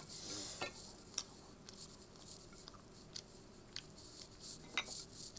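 Eating sounds: scattered soft clicks and smacks of chewing, with fingers picking food off a plate.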